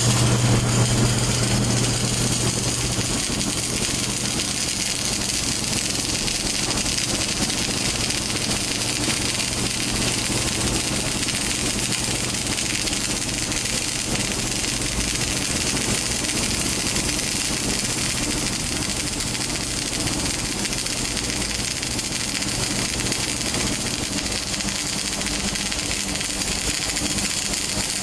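Electric arc welding: the arc crackles steadily without a break, over a low hum from the welding set that is strongest in the first few seconds.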